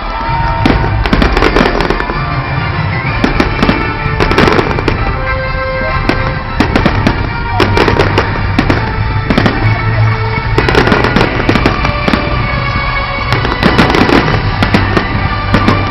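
Fireworks finale: shells bursting in quick bangs and crackles that come in thick clusters, over loud music with a steady bass.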